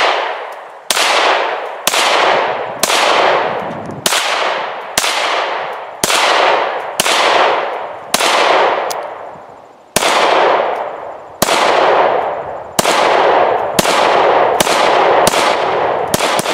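First-generation Smith & Wesson M&P 9 mm Luger pistol firing a string of about seventeen shots, each echoing off as it fades. The shots start about a second apart and quicken near the end. The pistol cycles through the whole magazine without a stoppage.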